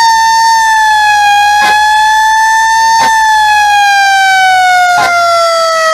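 Fire truck siren sounding one steady, loud wail that winds down slowly in pitch from about halfway through, with a few sharp clicks over it.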